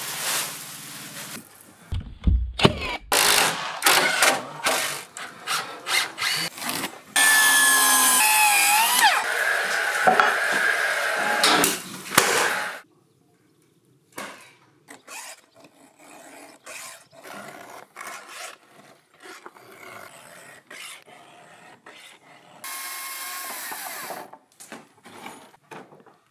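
Timber construction work: a series of sharp knocks and a low thud, then a power tool runs for about five seconds with its pitch sliding, followed by scattered quieter knocks and a second, shorter power-tool run near the end.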